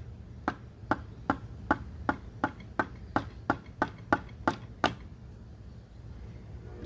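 A new NGK iridium spark plug tapped lightly on a metal surface, about a dozen sharp taps at roughly three a second that stop about five seconds in: the plug's ground electrode is being knocked down to close its gap from the factory 0.035 in toward 0.025 in.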